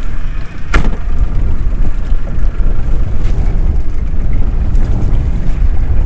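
30 hp outboard motor running on a small open boat, with a sharp click about three-quarters of a second in.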